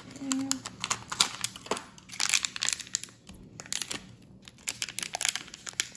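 A blind-box pin package being opened by hand: irregular crinkling and tearing of the wrapper, with scattered sharp clicks and rustles, busiest about two seconds in and again near the end.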